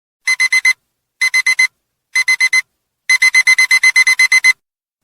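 Digital alarm-clock beeper going off as the countdown reaches zero. It gives three quick groups of four high beeps, then a longer rapid run of about a dozen beeps.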